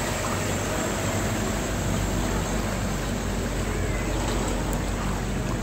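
Open river tour boat under way: a steady low motor hum under an even hiss of water and moving air.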